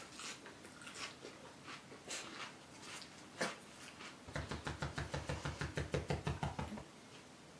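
Scattered soft clicks of eating, then about four seconds in a rapid, even run of soft thumps, about ten a second, lasting two and a half seconds: a dog scratching an itch with its hind leg.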